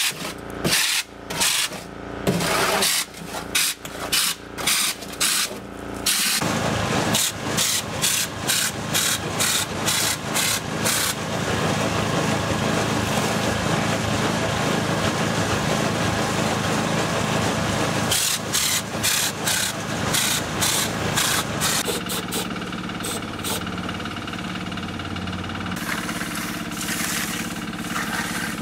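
Compressed-air stucco hopper sprayer blasting stucco onto a block wall, its trigger pulsed on and off in short bursts, then held for a long steady spray of about twelve seconds before more short bursts. An engine keeps running steadily underneath.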